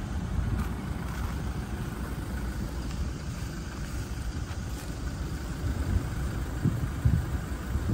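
Wind buffeting the microphone: an irregular low rumble, with a few stronger gusts near the end.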